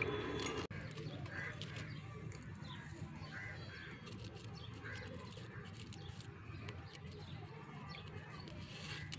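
A louder sound cuts off suddenly under a second in. Then come a few short bird calls, spaced out, over a steady low hum.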